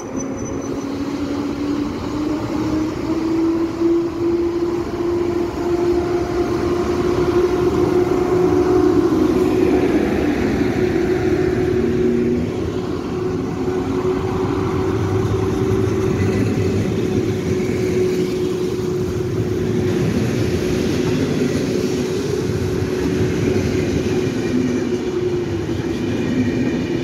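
EU07-family ('siódemka') electric locomotive starting away with a six-coach passenger train: a steady electrical hum that rises a little in pitch over the first few seconds and then holds, over the rumble of the coaches' wheels rolling past on the rails.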